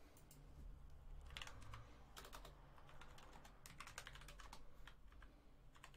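Faint clicking of computer keys, in short irregular clusters of keystrokes over a low background hum.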